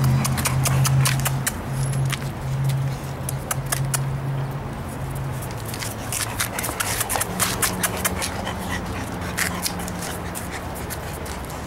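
Bullmastiff puppies moving about and making small sounds, with many short sharp clicks and ticks scattered throughout, over a low steady hum that steps up in pitch about halfway through.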